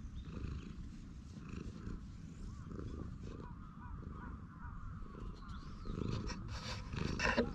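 Tabby cat purring steadily while being stroked, heard close up as a low rough rumble. A brief louder noise comes near the end.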